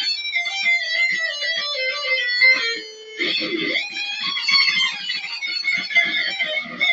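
Electric guitar shredding: fast runs of single notes, with a brief drop in level about three seconds in before the playing picks up again.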